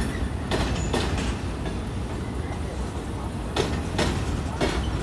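Freight train cars rolling past: steel wheels clacking over rail joints in quick pairs, over a steady low rumble.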